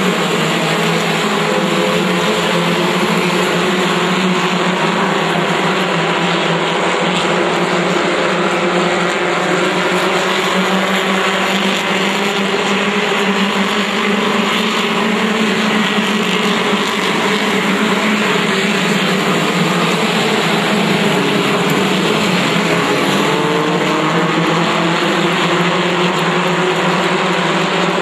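A pack of pure stock race cars running at speed around an oval track: many engines at once, a loud, steady blend whose engine notes waver up and down as the cars pass.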